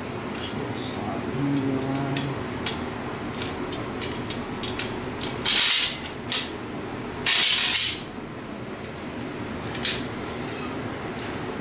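Metal parts of a Springfield M1A rifle clicking and scraping as the rifle is reassembled by hand. Two louder sliding rasps, each about half a second long, come a little past the middle, among scattered sharp clicks.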